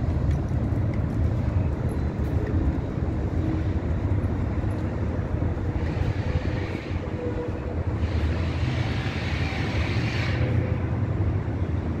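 City street background: a steady low rumble of traffic, with hissy swells about six seconds in and again from about eight to ten seconds in.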